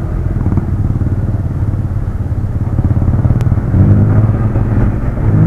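Motorcycle engine running with wind noise on an SJCAM Legend 6 action camera's improvised external microphone while riding with the visor open; the engine note gets louder and steadier about four seconds in.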